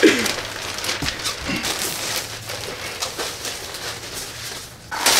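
Plastic poly mailer bags and packaging rustling and crinkling while clothing orders are packed, with scattered light taps and knocks.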